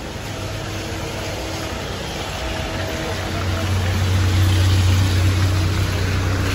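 Motor vehicle engine running close by, a steady low hum that grows louder about halfway through, over an even hiss of street noise.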